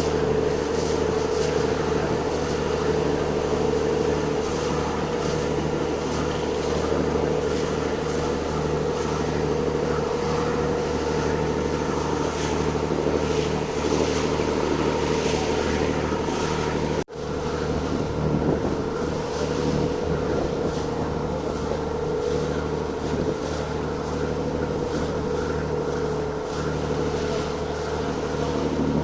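A boat's engine running with a steady drone, under a hiss of wind and water. The sound drops out for an instant about two-thirds of the way through, then carries on as before.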